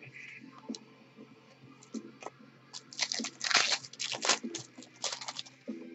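Wrapper of a football trading-card pack being torn open and crinkled by hand: a few light clicks, then dense crackling from about three seconds in until near the end.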